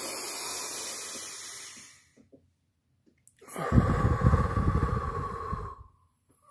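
A man's deep breathing: a long breath in through the nose that fades out after about two seconds, then, after a short pause, a long forceful breath blown out through the mouth, with wind rumble where the air hits the phone's microphone. It is a slow deep-breathing exercise.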